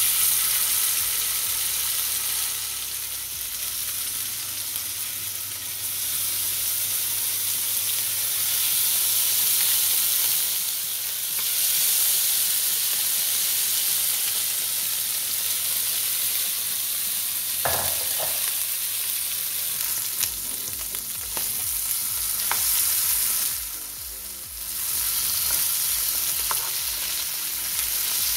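Turmeric-marinated octopus pieces sizzling in hot olive oil in a frying pan. The sizzle starts as the first pieces are laid in and eases briefly about three-quarters of the way through. A few light clicks sound over it.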